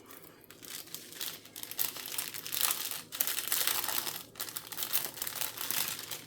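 Plastic packaging crinkling and rustling irregularly as it is handled, starting about half a second in.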